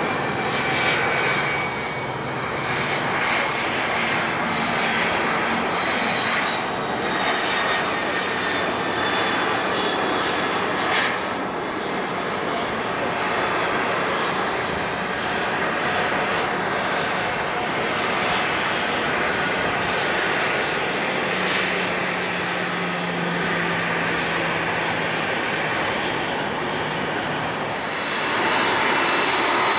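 Boeing 767-300's two General Electric CF6-80C2 turbofans running as the airliner rolls on the runway: a steady jet rush with a high fan whine over it. The sound swells a little near the end.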